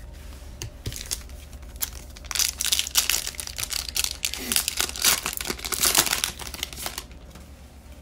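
Plastic cello wrapper of a trading-card pack crinkling and tearing as it is pulled open: a few light rustles first, then a dense, loud crackle from about two seconds in, lasting some five seconds and stopping shortly before the end.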